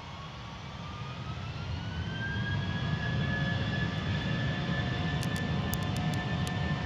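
Airbus A320's jet engines spooling up to takeoff thrust at the start of the takeoff roll: a whine rises in pitch over about two seconds and then holds steady, over a low rumble that grows louder.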